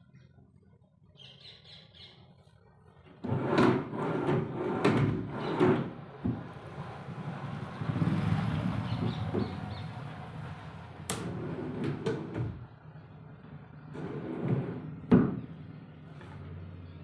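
Wooden pieces being handled in a workshop: a run of knocks and clatter starting about three seconds in, a longer sliding or scraping stretch, then more sharp clicks and one loud knock near the end.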